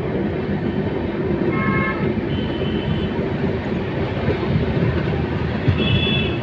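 Passenger train running, heard from inside the coach: a steady low rumble of wheels on the track, with short high-pitched tones sounding over it three times.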